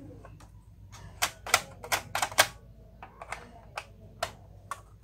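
Irregular sharp plastic clicks and taps, about a dozen, bunched together between one and two and a half seconds in, from hands working on parts inside an opened Epson L-series inkjet printer.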